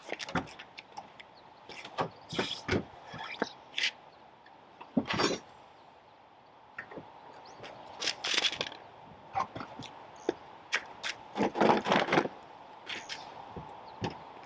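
Irregular clicks, knocks and scrapes of tools and gear being handled and set down, with louder clusters about five, eight and twelve seconds in.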